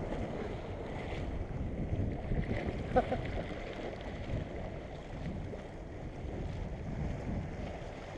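Wind buffeting the microphone over small waves washing against breakwater rocks, with one sharp click about three seconds in.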